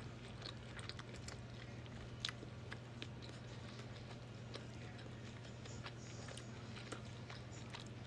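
A person chewing food close to the microphone: soft, scattered wet mouth clicks and smacks, over a steady low electrical hum.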